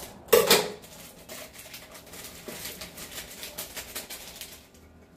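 Kitchen handling noises as boxed macaroni-and-cheese powder packets are cut open with scissors and emptied over the pan: a sharp clatter about half a second in, then a run of light clicks and rustles.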